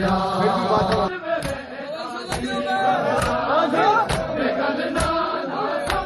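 Crowd of men chanting a noha together, over rhythmic matam: open hands slapping bare chests in unison, a sharp slap about once a second.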